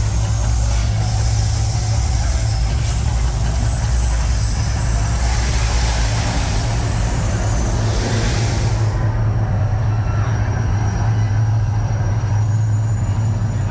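Mirage volcano show's eruption effects: a loud, steady deep rumble with a hiss over it that cuts off about nine seconds in, while the rumble carries on.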